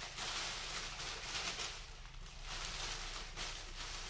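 Clear plastic bag crinkling and rustling as it is handled around a power tool, swelling and fading unevenly.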